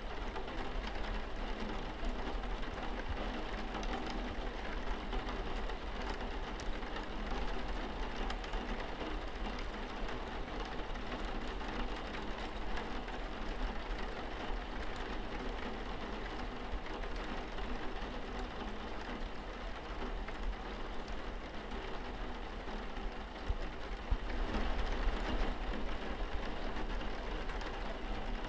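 Steady rain pattering on window glass: many small drop ticks over an even hiss, getting a little heavier about three quarters of the way through.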